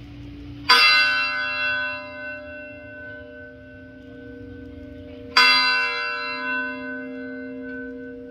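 A church bell struck twice, about four and a half seconds apart, each strike ringing on and slowly fading. A low hum from an earlier strike is still sounding at the start.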